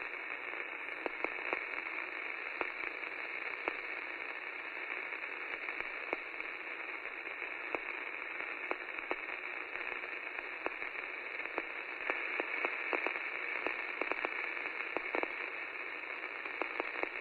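Steady static hiss with scattered crackles and pops, thin like an old radio between stations.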